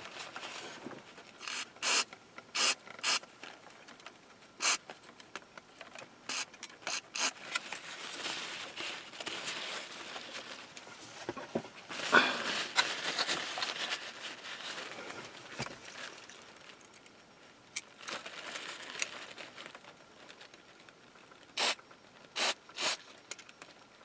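Aerosol electronic contact cleaner sprayed in two hissing bursts into a faulty car map-light switch, with sharp clicks and handling knocks before and after.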